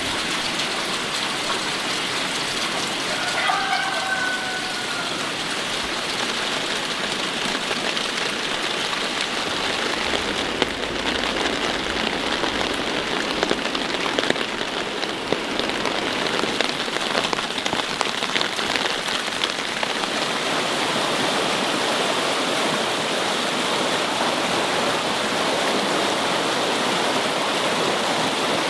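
Steady sizzling and crackling of food frying in hot oil in a pan, with sharper pops clustered in the middle stretch.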